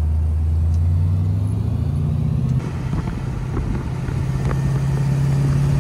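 Vehicle engine drone with road noise, heard from inside a moving car: the pitch rises as the car accelerates, then after a cut about two and a half seconds in it holds a steady, higher drone at cruising speed.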